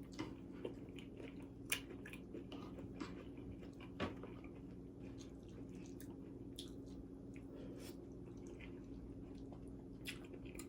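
A person chewing cooked vegetables: scattered soft crunches and wet mouth clicks, with a faint steady hum underneath.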